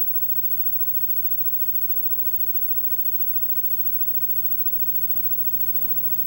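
Steady hiss with a low electrical hum, the kind of noise a recording carries before any sound begins; the hum shifts slightly near the end.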